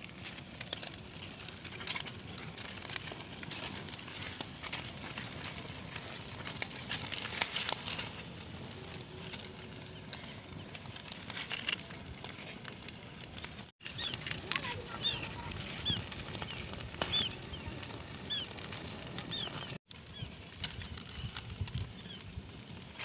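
Small fire of dry grass and sticks crackling, with many short sharp clicks and pops. Through the middle a bird gives a run of short, quick chirps.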